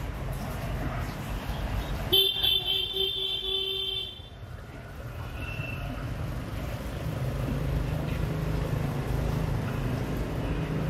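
A vehicle horn sounds once for about two seconds, a couple of seconds in, over a steady low rumble of road traffic and engines.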